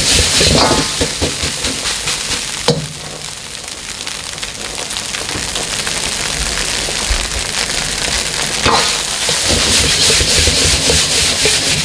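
Egg fried rice sizzling in a wok as a metal ladle scrapes and tosses it, with one sharp clank of the ladle on the wok about three seconds in. The stirring eases for a few seconds, then the tossing and scraping pick up again near the end.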